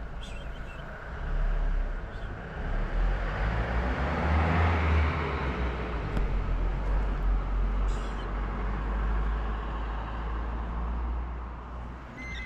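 A motor vehicle passing close by on the street: a low rumble with road noise that swells to a peak about halfway through and then fades.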